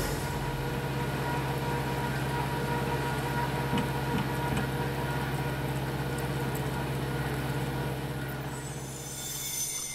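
Diesel engine of a Klemm KR 806-3GS anchor drilling rig running steadily at a constant pitch, powering the rig's hydraulic pumps. The hum eases off slightly near the end.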